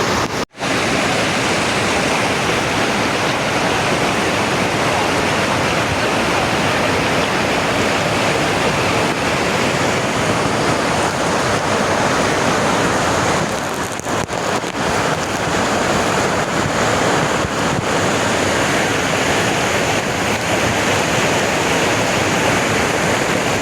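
Waterfall's steady rush of falling water, with a brief sudden gap about half a second in.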